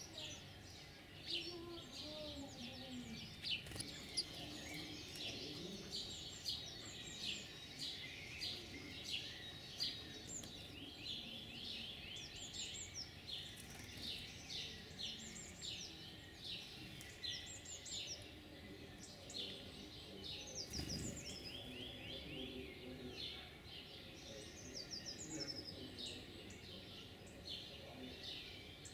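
Several wild songbirds singing and calling over one another, with short high chirps and quick trills repeating throughout, over a faint steady background hum.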